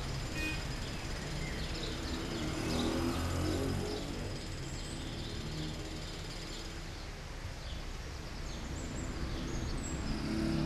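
City background noise: a steady hum of distant traffic, with faint short bird chirps scattered through it and a low rumble that swells about two to four seconds in and again near the end.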